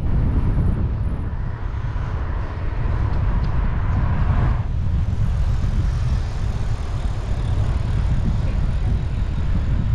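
Wind buffeting the microphone of a cyclist riding into a headwind: a dense, steady low rumble, with a rushing sound that swells and then drops away abruptly about four and a half seconds in.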